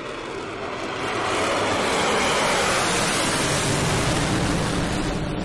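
A loud rushing whoosh sound effect with no tone in it, swelling over the first two seconds and then holding steady.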